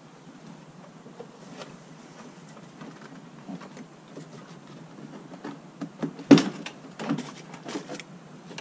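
Plastic trim cover inside a car trunk being handled and pulled loose by hand: scattered rustles and light clicks, with one sharp knock about six seconds in and a few smaller knocks just after.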